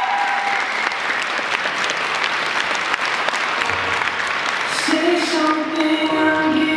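Audience applauding. About five seconds in, Viennese waltz music starts under the applause.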